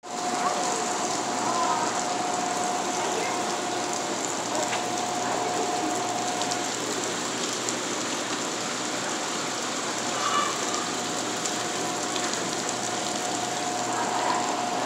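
Steady rush of water splashing from a fountain-like water feature, with a faint steady hum that drops out for a few seconds in the middle.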